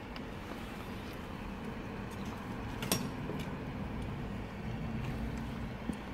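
Steady low rumble of background traffic, with one sharp click about three seconds in.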